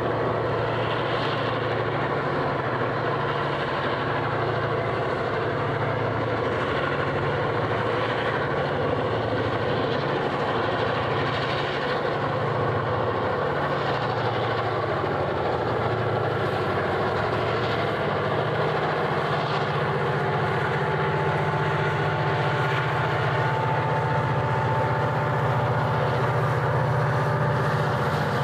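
EMD two-stroke diesel-electric locomotives of the GM and ALF classes running together, a steady heavy engine drone with a slow uneven throbbing as the engines beat against each other, growing slightly louder toward the end.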